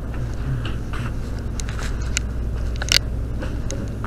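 Fabric and zipper of a hoodie rustling and scraping against a chest-worn spy pen camera's microphone while walking. Scattered clicks and crackles, the sharpest about three seconds in, sit over a steady low rumble.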